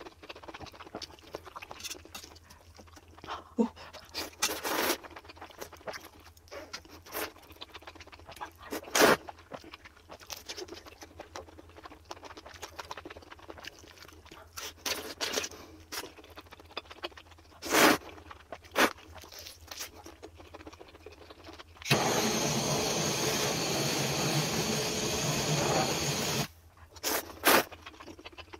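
Close-miked sped-up mukbang eating sounds: chewing and biting spicy fire noodles and kielbasa, with scattered clicks of a fork on a glass tray. Late on, a loud, steady rushing noise lasts about four seconds.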